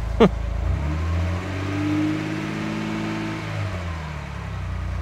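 BMW 330i straight-six engine revved once, its note rising and then dropping back to idle. It is still running rough and in limp mode with the Valvetronic motor unplugged. A brief sharp sound just after the start is the loudest moment.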